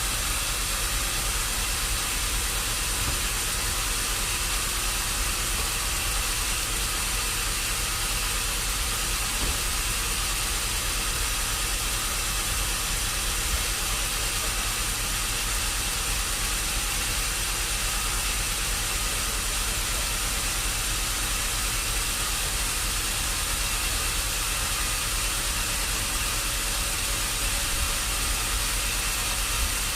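Steady machinery noise: an even hiss over a low hum, unchanging throughout.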